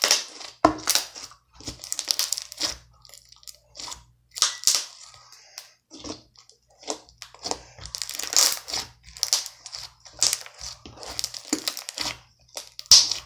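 Hand-played slime being squished and stretched, making a long run of irregular squelches and small pops.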